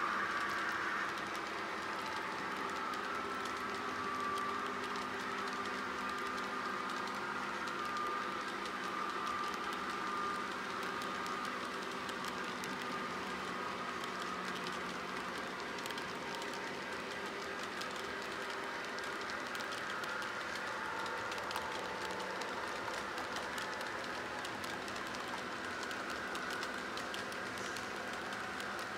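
S scale model diesel train running on its track: a steady hum and whine from the locomotives' motors and gearing, with light clicking of the wheels over the rail joints.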